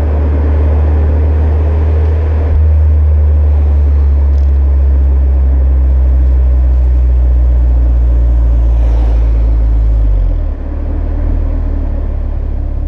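BMW E36 318i four-cylinder engine running steadily through a Supersprint aftermarket exhaust, a loud low drone at near-constant revs. About ten seconds in, the drone drops a little in pitch and level as the revs come down.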